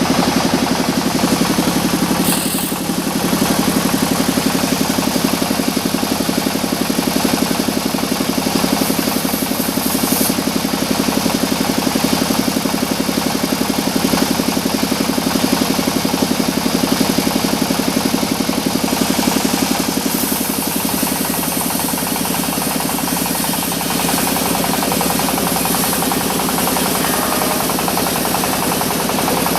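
Sawmill saw and its engine running steadily while mahogany timber is cut, with a fast, even engine beat under a noisy mechanical din and a brief dip about two and a half seconds in.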